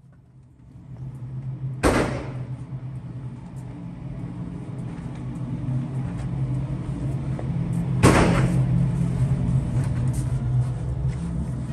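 Two loud sharp bangs about six seconds apart over a steady low hum that grows slowly louder.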